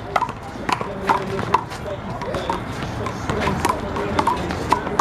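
Rubber handball being slapped by hand and bouncing off the wall and pavement during a fast one-wall handball rally: a run of sharp smacks, roughly two a second.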